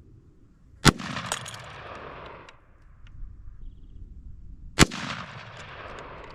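Two rifle shots from an AR-style rifle firing 5.56 rounds, about four seconds apart, each trailing off in an echo over a second or so. A fainter sharp crack follows just after the first shot.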